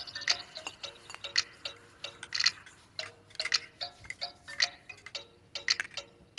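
Metal spoon clinking against the sides of a small glass cup while stirring melted butter, a short sharp clink two or three times a second at an uneven pace.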